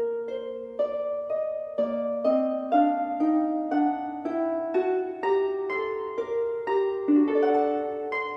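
Instrumental background music: a melody of plucked, harp-like notes, about two a second, each note starting sharply and fading.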